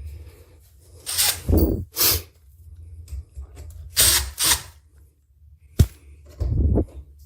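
A handheld power driver whirring in several short bursts of about half a second each, with a sharp click near the end.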